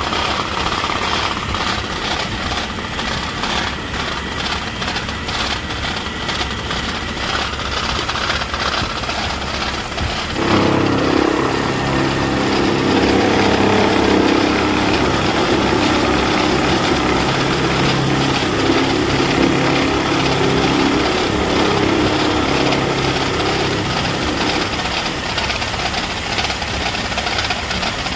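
Metal lathe running, a steady mechanical clatter and hum. About ten seconds in it gets louder, with a steady hum of several tones added, which fades a few seconds before the end.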